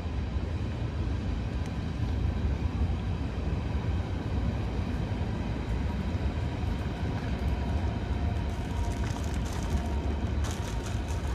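Steady low rumble of vehicle noise with a few faint steady whining tones above it, and a short patch of crackling clicks near the end.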